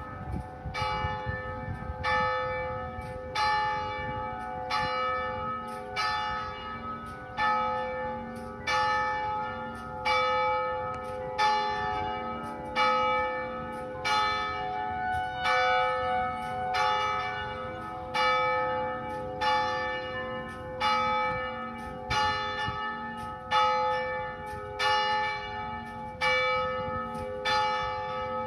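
Church bells ringing: several bells of different pitch struck in a steady, repeating sequence, each strike ringing on and overlapping the next, about one strike a second.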